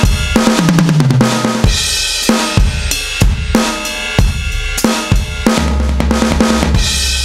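NUX DM-1 electronic drum kit played with sticks, heard as the sound module's sampled kick, snare, toms and cymbals in a steady groove. A tom fill falls in pitch about half a second in. A steady low hum comes in about five and a half seconds in and holds under the last hits.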